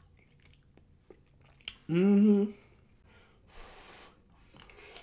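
A person eating soft rice with quiet wet mouth clicks, and a loud, steady hum of about half a second, two seconds in. A breathy puff of air follows near the four-second mark.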